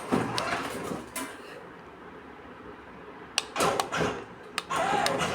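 Children's battery-powered 4x4 ride-on car running in reverse, its electric drive giving a noisy, uneven sound broken by a few sharp clicks and knocks.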